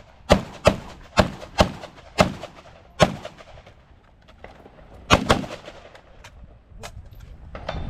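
Semi-automatic rifle fired in a quick string of about six shots, then a pause of about two seconds, then two rapid shots about five seconds in, followed by a few fainter reports near the end.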